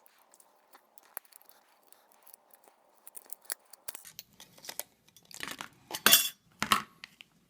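Small metal and plastic parts of an iPod being taken apart by hand: scattered light clicks and clinks, then a few louder scrapes and knocks from about five seconds in.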